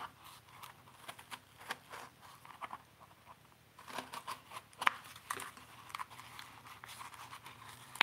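Scissors snipping and cutting at a small cardboard box: a string of short, sharp clicks, sparse at first and coming thicker from about halfway through.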